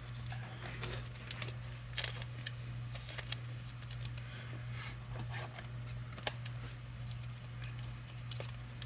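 Trading cards being handled and flipped through in the hands, with light clicks and rustles of card stock, over a steady low hum.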